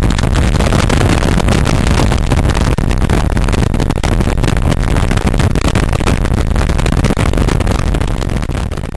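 Steady rush of wind buffeting the microphone of a motorcycle riding at motorway speed, with road and engine noise underneath; it fades out near the end.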